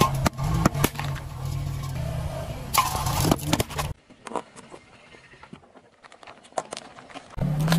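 Car engine idling as a tyre rolls over aluminium drink cans and crushes them, with sharp cracks and pops in the first few seconds. Then about three seconds of much quieter, scattered crunching clicks as smaller objects are crushed, before the engine hum returns near the end.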